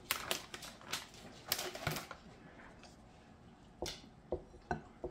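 Plastic shredded-cheese bag crinkling with rapid crackles as the cheese is shaken out into a bowl, then a few separate knocks of a wooden spoon against a glass mixing bowl as the cheese is stirred into the batter near the end.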